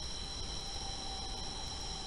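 Nighttime insect chorus, crickets or katydids, a steady high-pitched trill that doesn't change, over a low rumble.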